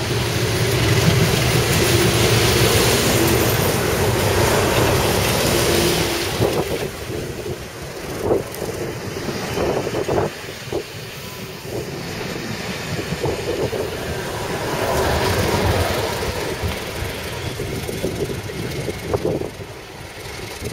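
A class 37 diesel locomotive running past at the head of a test train, its engine loud for the first few seconds. Then a few sharp wheel knocks from the passing coaches, and the engine of the class 31 diesel on the rear rises again as it goes by.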